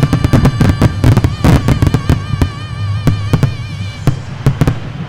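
Fireworks display: a rapid barrage of aerial shells and comets going off with many sharp bangs, thinning out after about two seconds. Music with long held, wavering notes plays underneath and ends about four seconds in.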